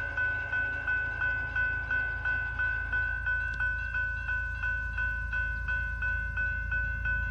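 Grade-crossing warning bell ringing steadily, about three strikes a second, over the low rumble of a CP manifest freight train approaching or passing the crossing.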